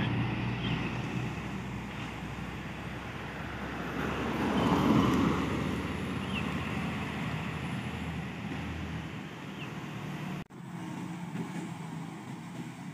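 Diesel truck engines running as loaded box trucks pull away down a hairpin bend, the noise fading. A vehicle passes louder about five seconds in. The sound cuts out for an instant about ten seconds in, and after that only quieter road traffic is heard.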